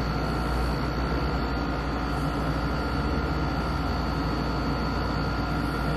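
Steady, unchanging hiss with a low hum and two faint constant high whines, like a running fan or room machine.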